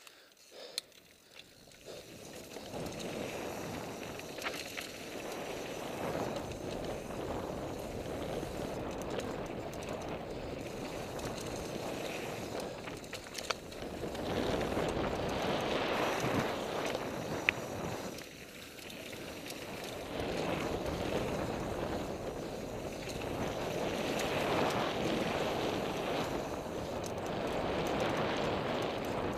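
NS Bikes Soda mountain bike descending a dirt trail at speed: knobby tyres rolling over dirt and leaves, with wind rushing over the microphone. The noise builds within the first couple of seconds as the bike picks up speed, eases briefly about two-thirds through, and carries a few sharp clicks from the bike.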